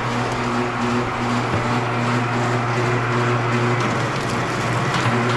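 Automatic wire stripping machine running: a steady motor hum with a higher tone pulsing about twice a second, which drops out briefly about four seconds in.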